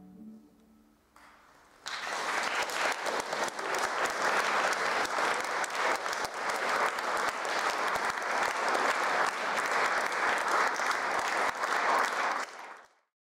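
The last note of a flute and harp piece dies away, then a small audience applauds from about two seconds in. The clapping stays dense and even, then fades out near the end.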